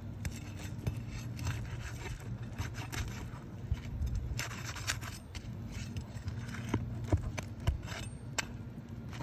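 Gloved hands and a flat pry bar scraping and rubbing over the gritty, granule-coated surface of Tamko asphalt shingles while feeling under the tabs for nails. The scrapes are irregular, with a few sharp clicks.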